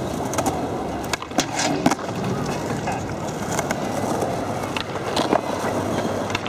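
Skateboard wheels rolling steadily, with several sharp clacks of the board through the stretch.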